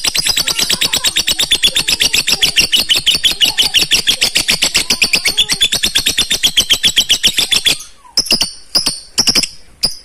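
Lovebird giving a long, rapid chattering trill of sharp, high notes, about nine a second: the extended 'ngekek' chatter prized by lovebird keepers. It breaks off about eight seconds in, and a few single shrill calls follow.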